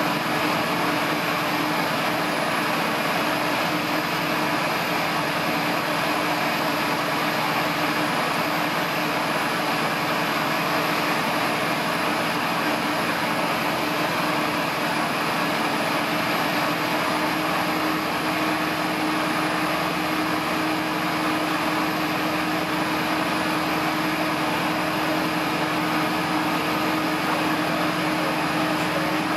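Light single-engine aircraft's piston engine and propeller running steadily, heard from inside the cockpit during the ground roll.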